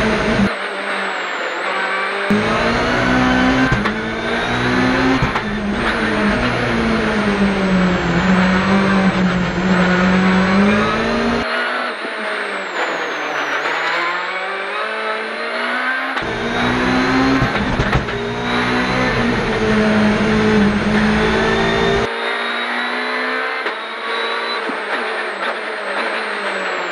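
Hyundai i20 WRC rally car's turbocharged four-cylinder engine heard onboard at full attack. It revs up hard and drops back over and over as it shifts and lifts off.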